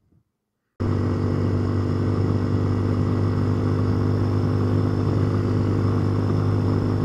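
Near silence, then less than a second in a Hawk 250 enduro's engine cuts in, running at a steady cruising speed with an unchanging pitch under a steady rush of wind.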